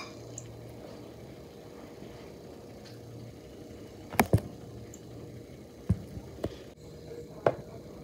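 Male northern cardinal pecking at birdseed on a glass tabletop: five sharp taps, a close pair about four seconds in and three more spread over the following few seconds.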